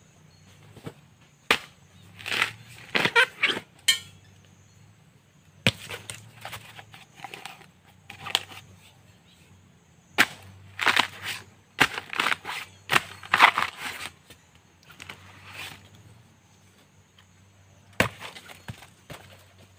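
Sharp chopping strikes of a long-handled bamboo-shoot blade cutting Kim Sung bamboo shoots off at the base, each followed by crunching and cracking as the fibrous shoot splits. The strikes come in two clusters, with one last sharp strike near the end.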